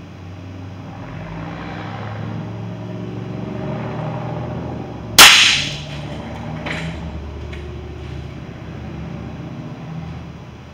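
A single air-rifle shot from a Gamo Magnum .22: one sharp, loud crack about five seconds in as the pellet bursts a pickled egg, followed by a smaller knock about a second and a half later. A steady low hum runs underneath.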